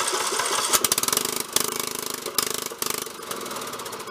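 Briggs & Stratton 13.5 hp Intek single-cylinder engine on a Snapper Comet rear-engine mower running just after starting on a new spark plug, faltering briefly a few times in the middle before running steadier.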